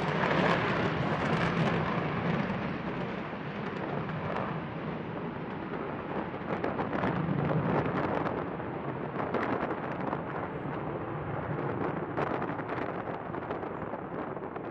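B-1B bomber's four afterburning General Electric F101 turbofans rumbling and crackling as the aircraft climbs away after takeoff, the roar slowly fading with distance.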